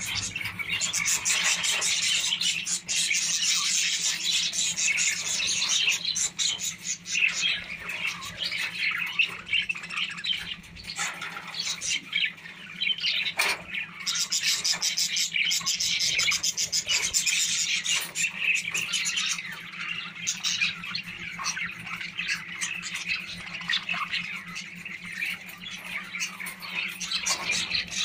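A flock of budgerigars chattering and squawking without a break, louder for a few seconds near the start and again about halfway through.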